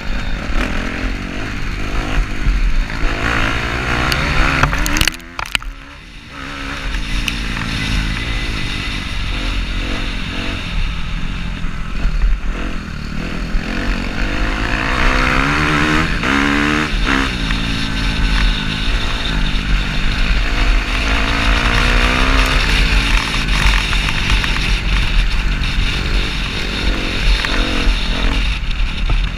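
Kawasaki KX250F dirt bike's single-cylinder four-stroke engine running hard under load, its pitch rising and falling as the throttle is worked and the gears change. About five seconds in the sound drops briefly, as if the throttle is closed, then picks up again.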